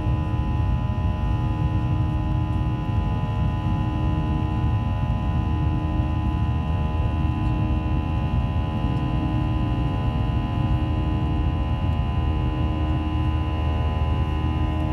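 Cabin noise of a Boeing 737-800 climbing after takeoff, heard from a window seat over the wing. Its CFM56-7B engines run at climb power: a steady low rumble with a set of whining tones held above it.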